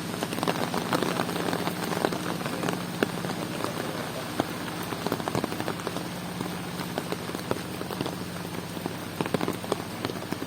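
Heavy rain falling, an even hiss dense with sharp drop impacts, with a steady low hum underneath.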